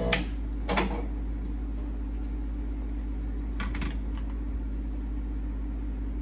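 A few light clicks and clacks as a metal espresso portafilter is handled and set down on a kitchen scale, over a steady low hum.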